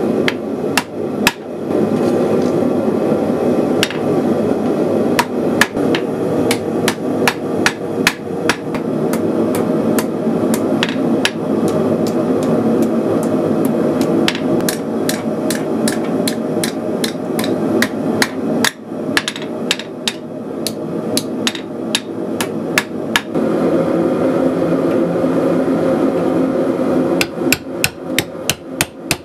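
Blacksmith's hammer striking red-hot steel bar on an anvil: a long run of sharp blows, two or three a second, over a steady roar. Near the end the roar drops and the blows come quicker and more evenly, as the hot bar is worked on a hardy cut-off tool.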